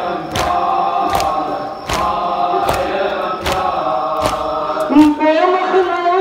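Crowd of mourners chanting a nauha in unison over rhythmic matam: open-hand chest-beating slaps in time, about one beat every 0.8 s. About five seconds in, the slaps stop and a lead voice carries on with a wavering melody.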